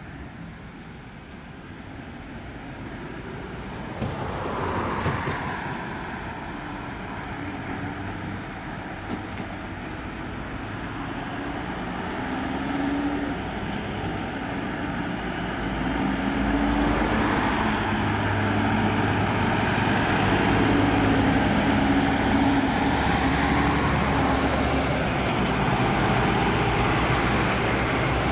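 Convoy of fire trucks driving past, their diesel engines running over road and tyre noise, getting steadily louder as the heavy trucks come close in the second half.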